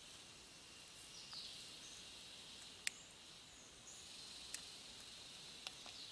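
Faint forest ambience: a steady high hiss of insects with a few short faint bird chirps, and three brief sharp ticks.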